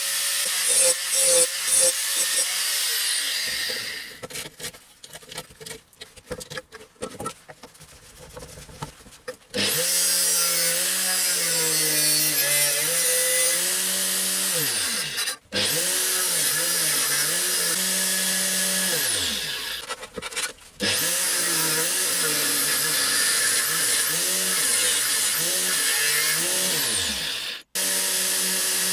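Angle grinder cutting metal. After a few seconds of clattering and clicks, the grinder runs loud with a hissing cut, its motor pitch dropping and recovering again and again as the disc is pressed into the work. It stops abruptly a few times.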